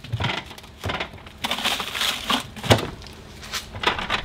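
Handling noise from a frozen meat pie's packaging as it is put back into a portable car fridge: a string of short crackles and knocks.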